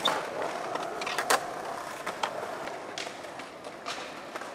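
Skateboard wheels rolling on smooth concrete with a steady hiss, broken by sharp clacks of boards striking the ground, the loudest a little over a second in.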